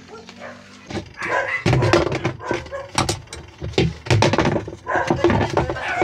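A dog barking repeatedly in loud, irregular bursts, starting about a second in.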